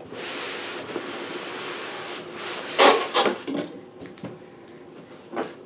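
A large cardboard shipping box being handled: cardboard scraping and rubbing for about two seconds, then two louder knocks about three seconds in, and a few faint taps near the end.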